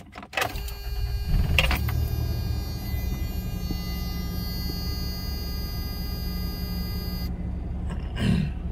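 1993 Toyota pickup engine cranking and catching about a second in, then running at a fast cold idle that slowly settles. A steady electronic warning beep, typical of 90s trucks, sounds along with it and cuts off about seven seconds in.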